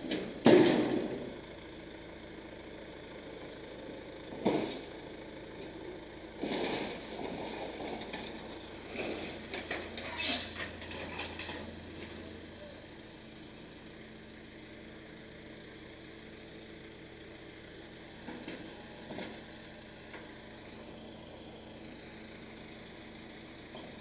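John Deere 310D backhoe loader's diesel engine running steadily, with loud bangs and rattles of corrugated metal panels being loaded onto its front bucket. The loudest bang comes about half a second in, with more around 4, 6 and 10 seconds in.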